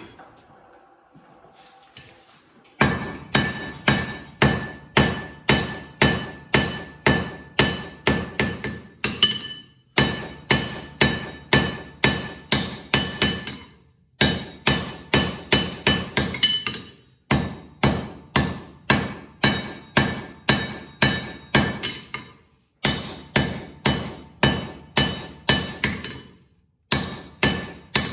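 Hand hammer striking hot steel from an old file on an anvil, shaping a flint striker: about two blows a second in runs broken by short pauses, each blow ringing.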